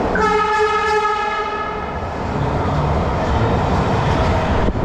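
Horn of a MARTA Franco-Belge/Alstom CQ310 rapid-transit car sounding once for about two seconds, several steady tones together, then fading into the steady running noise of the train.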